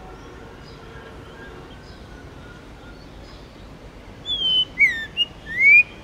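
White-rumped shama singing: faint scattered whistles, then about four seconds in a short loud phrase of four clear whistled notes. The first notes fall in pitch and the last, loudest note rises.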